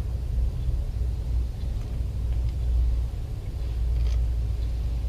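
Steady low rumble, with a few faint light clicks about two seconds and four seconds in.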